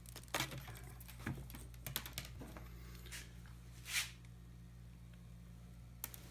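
Hands handling electronic matches and their packaging: scattered light clicks and a short rustle about four seconds in, over a faint steady hum.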